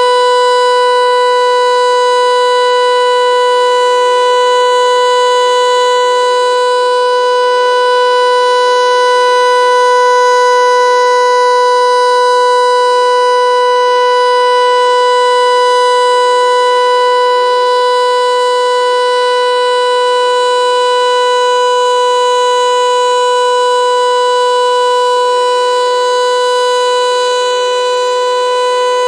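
Federal Signal Eclipse 8 electronic siren sounding a steady alert signal: one unwavering tone that does not rise or fall, loud and rich in overtones, easing off slightly in level near the end.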